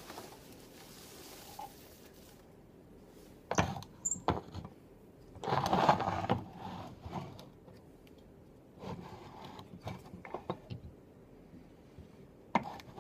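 Unpacking noises: packaging rustling and a model delivery truck handled and set down on a wooden floor, with a few sharp knocks and a louder stretch of rustling about six seconds in.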